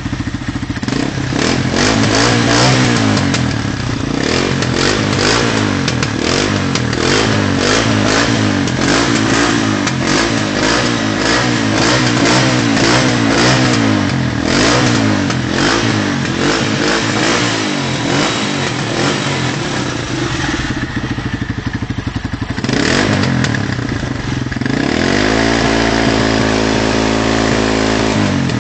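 Yamasaki 125 motorcycle engine on its stock exhaust, revved up and down over and over. It drops back briefly about twenty seconds in, surges once, then climbs and holds at a steady higher speed near the end.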